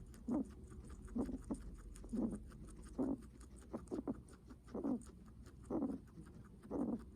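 Guinea pig breathing heavily: a short, noisy breath about once a second, with a few fainter ones in between.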